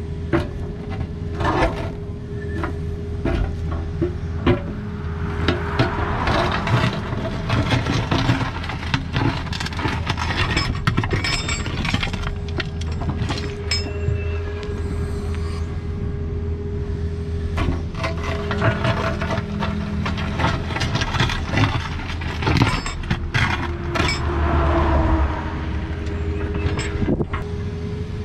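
Takeuchi excavator running steadily while its toothed bucket digs rocky soil. Repeated scraping, knocks and clanks of steel on dirt and stone sound over the engine drone.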